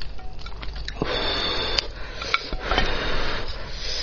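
Close-miked eating of a spicy braised lamb's head: wet, smacking mouth sounds and rubbing of the meat in several spells, with one sharp click about two seconds in.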